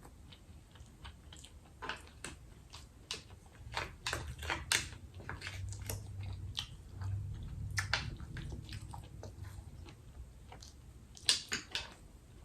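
Close-miked chewing and wet mouth clicks of a person eating rice, an irregular stream of short smacks that is loudest in a quick cluster near the end.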